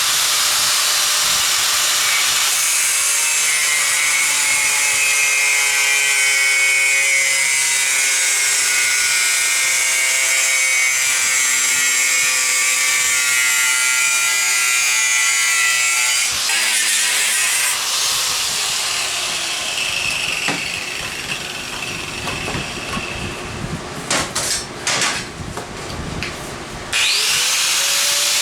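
Angle grinder with a cut-off wheel cutting through metal: a loud, high-pitched grind with the motor's whine shifting in pitch under load. About two-thirds of the way through it turns quieter and uneven for several seconds, then it spins back up and cuts loudly again near the end.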